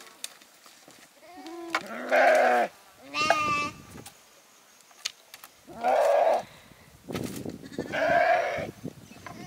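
Flock animals bleating, about six separate calls, the loudest about two and six seconds in and one higher, wavering call about three seconds in.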